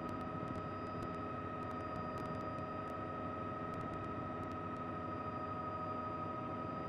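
Steady helicopter noise heard from on board: a constant high whine over an even rushing hiss.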